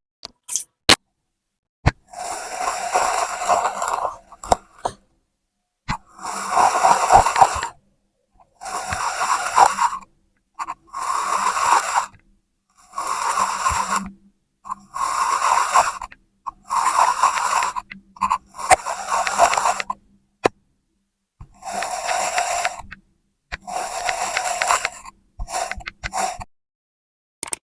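Kinetic sand being worked in repeated strokes: about ten scraping passes of a second or two each, separated by short pauses and a few sharp clicks.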